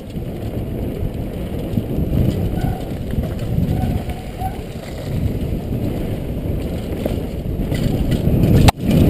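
Downhill mountain bike ridden fast over loose shale and dust, heard from a helmet camera: a dense rumble of tyres grinding over stones, with wind buffeting the microphone. It breaks off sharply near the end and comes straight back louder.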